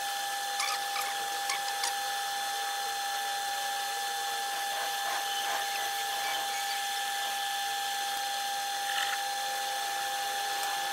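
Metal lathe running, turning a steel shaft against its cutting tool, with a steady high whine from the machine. A few light ticks come in the first two seconds, and a short scrape about nine seconds in.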